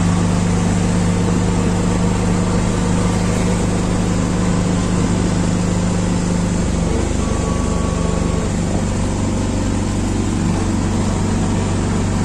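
Auto-rickshaw engine running steadily under way, heard from inside the open cabin with a hiss of wind and road noise. The engine note shifts about seven seconds in.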